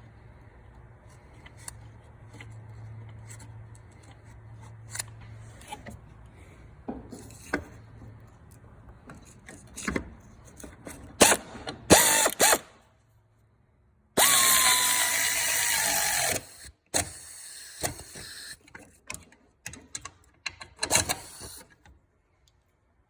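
Tool work on the hood latch's 10 mm mounting bolts: scattered clicks and metal knocks, then the loudest part, a dense mechanical run of about two and a half seconds with a pitch that falls, about two thirds of the way in, followed by more clicks.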